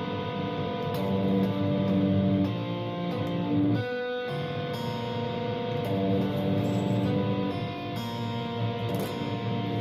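Electric guitar playing a G7♯9 chord, struck and left to ring, with a short break about four seconds in before it sounds again.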